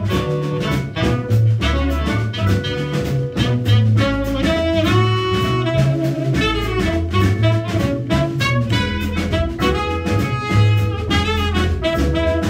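Small jazz group playing live: trumpet and saxophone carrying the melody over walking upright bass, vibraphone and drum kit.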